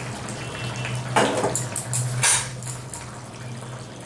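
Thin hilsa fish curry bubbling in a pan, a steady liquid simmer, with a couple of short knocks of utensils against the pan about one and two seconds in.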